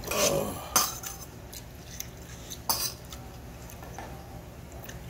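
Metal spoon scraping and clinking against a stainless steel bowl while stirring and scooping barley bibimbap, with two sharper clinks: one just under a second in and one a little under three seconds in.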